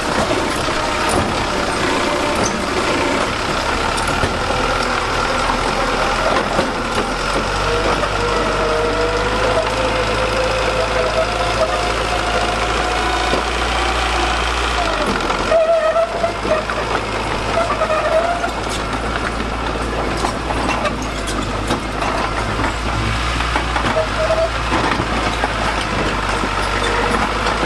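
Engine of heavy construction machinery running steadily, with a whine that wavers up and down in pitch and a brief dip in the engine note about halfway through.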